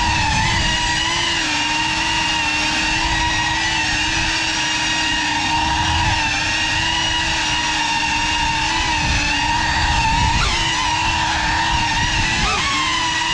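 Geprc Cinelog35 6S cinewhoop's brushless motors and ducted propellers whining steadily in flight, recorded by the onboard GoPro, with quick swoops in pitch near the end as the throttle changes.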